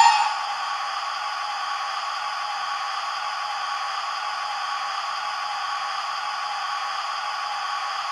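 Hornby TTS sound decoder in a stationary Hogwarts Castle model steam locomotive playing a steady steam hiss, with the tail of a whistle cutting off just as it begins.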